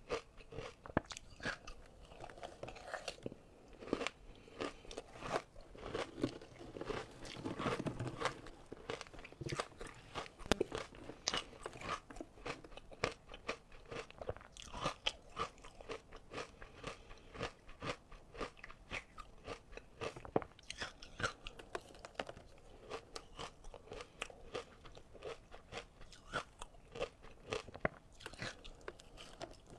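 Close-miked crunching of ice being bitten and chewed, many sharp irregular cracks several times a second, with a denser stretch of chewing about eight seconds in.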